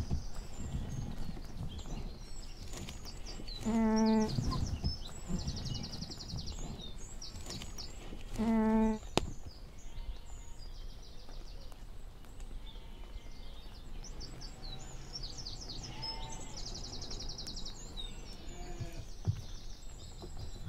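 Sheep bleating twice, two short calls about four and a half seconds apart. A bird sings in the background with repeated high, rapid trills.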